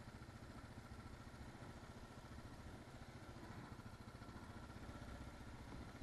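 Kawasaki KLR 650 motorcycle's single-cylinder engine running faintly and steadily while the bike rides a dirt track.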